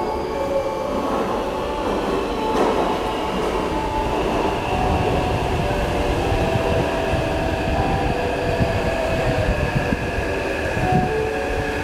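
Taipei Metro electric train moving through an underground station. Its traction motors whine in several held tones over a low rumble of wheels and rails.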